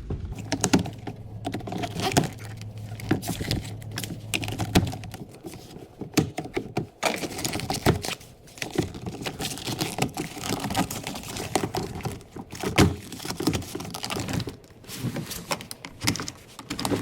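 Rapid, irregular plastic clicks, taps and small snaps as the old power window switch is pried out of the Jeep Compass door panel with a pry tool. A steady low hum underneath stops about five seconds in.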